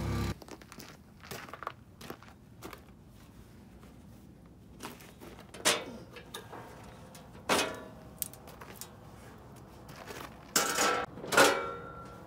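Sheet-metal engine side cowls of a 1969 Allis-Chalmers forklift being unlatched and pulled off: scattered light clicks and rattles, with a few louder metallic clanks in the second half.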